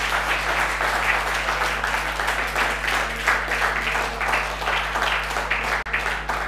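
Congregation applauding steadily, a dense patter of many hands clapping, over a faint steady low hum.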